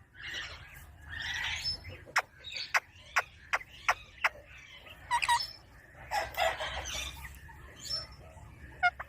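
Pet ringneck parrot vocalizing: raspy chattering calls, with a string of sharp clicks in the middle and a short pitched call a little after.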